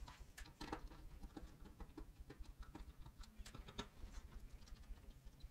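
Faint, irregular small clicks and taps of plastic and metal parts being handled during the disassembly of a satellite radio antenna.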